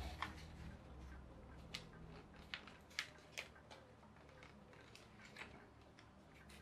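A sheet of paper being folded and creased by hand: faint, scattered crisp ticks and crinkles, a few sharper ones about two to three and a half seconds in.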